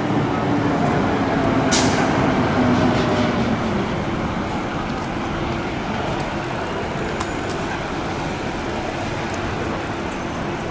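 Heavy diesel vehicles, a fire turntable ladder truck and a city bus, running at low speed in street traffic; an engine note falls in pitch over the first few seconds. A short sharp hiss comes about two seconds in.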